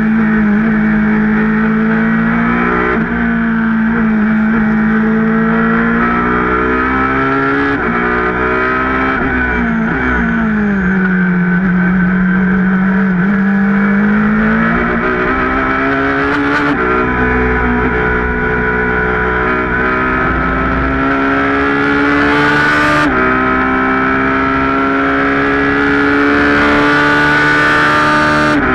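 Ferrari 458 GT2's V8 racing engine heard from inside the cockpit under hard acceleration, its pitch climbing and then dropping sharply at upshifts several times. Partway through, the revs fall away and climb again through a corner.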